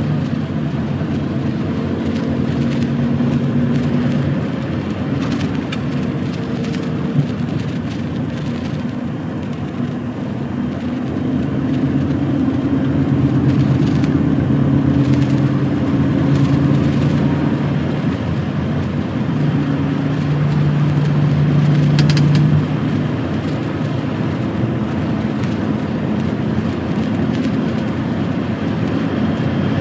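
Lorry's diesel engine and road noise heard from inside the cab while driving, the engine note shifting up and down several times as the revs change.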